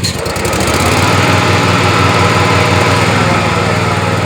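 Petrol engine of a CE52T remote-control mower running with throttle as its cutting deck is engaged. A click comes right at the start, then the blades spin up and the sound grows louder and fuller over about the first second before holding steady.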